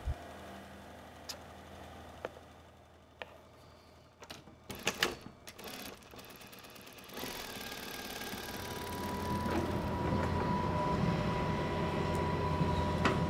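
Scattered clicks and a short cluster of knocks, then from about halfway a steady machine hum that grows louder, with a low drone and a thin high tone.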